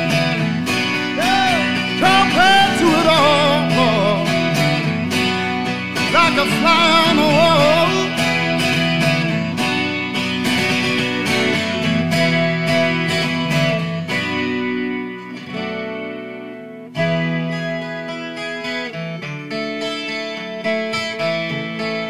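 Acoustic guitar playing with wordless, wavering singing over it in the first half; the music dies away around 14 seconds in, and strummed acoustic guitar comes back in sharply about 17 seconds in.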